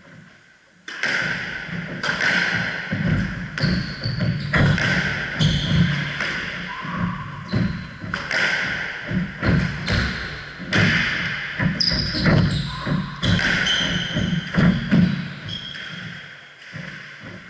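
Squash rally on a hardwood court: the ball repeatedly hitting the rackets and the walls, with shoes squeaking and feet thudding on the wooden floor. Play starts about a second in and dies down near the end.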